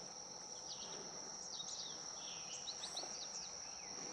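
Outdoor ambience: a steady, high-pitched insect drone with scattered short bird chirps.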